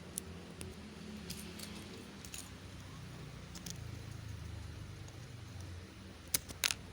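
Small hard plastic pieces clicking and clattering as Lego parts are handled: a few scattered sharp clicks, then two louder ones close together near the end, over a low steady hum.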